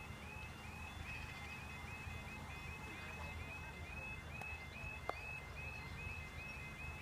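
UK level crossing audible warning alarm sounding, a high warbling tone repeating a few times a second while the crossing is closed for a train. A single sharp click about five seconds in.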